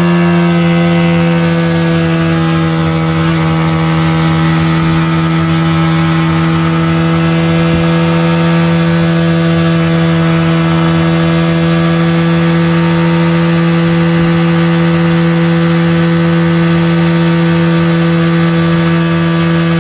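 Motorcycle engine held at a steady high rev under constant throttle for a timed test run, its pitch unchanging throughout.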